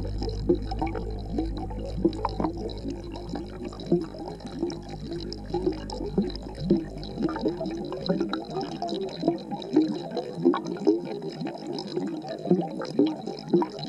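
Aquarium water bubbling and gurgling as picked up by a camera under water in the tank: a rapid, irregular run of small bubble pops. A low hum fades out over the first few seconds.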